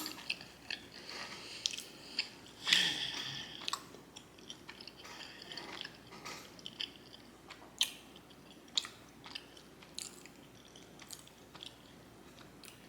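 Close-miked chewing of a forkful of creamy cacio e pepe pasta with chicken: wet mouth clicks and smacks, with a louder burst about three seconds in.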